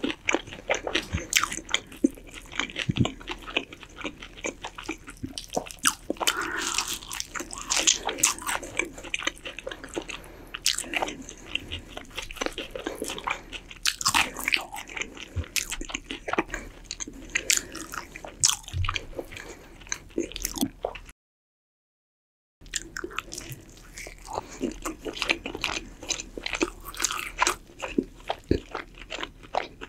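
Close-miked chewing and biting of roast chicken, with crisp skin crunching and wet mouth sounds, and meat being torn off the carcass by gloved hands near the end. The sound cuts out completely for about a second and a half past the middle.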